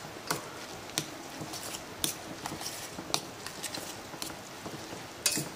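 A metal utensil clinking against a stainless steel saucepan as instant noodles are tossed in their sauce: light, sharp clicks at uneven intervals, about one a second.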